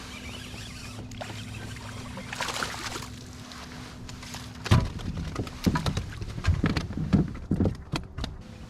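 Electric kayak motor humming steadily, then stopping about halfway through, followed by a run of sharp, irregular knocks and thumps against the kayak.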